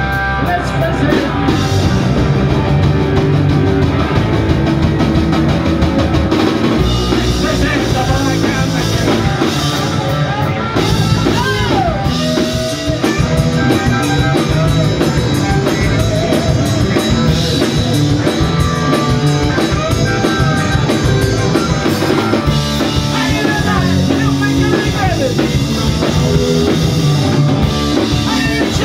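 Punk rock band playing live at full volume: distorted electric guitars, bass and drum kit through the PA, with some singing.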